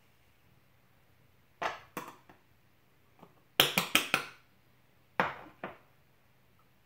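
Sharp taps and knocks from handling a tub of Coty Airspun loose setting powder as it is opened and tapped. There are single knocks, a quick run of four near the middle, and two more a little later.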